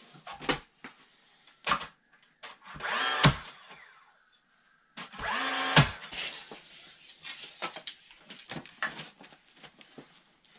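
Power drill running in two short bursts of about a second each, each ending in a sharp knock, with scattered clicks and knocks between.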